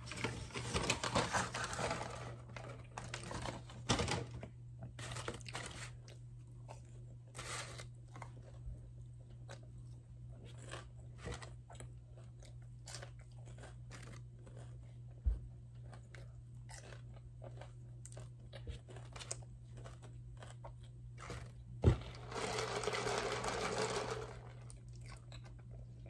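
Close-miked eating of a breakfast croissant sandwich: a crunchy bite in the first couple of seconds, then chewing with many small wet mouth clicks. A sharp knock about 22 s in, then a second or two of sipping iced coffee through a straw.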